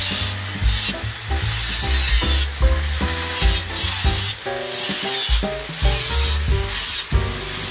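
Background music with a steady deep beat and a stepping melody, over a bright hissing sound that pulses with the beat.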